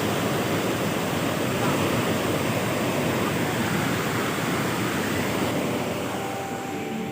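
Waterfall rushing in a steady, even roar. Music fades in faintly near the end.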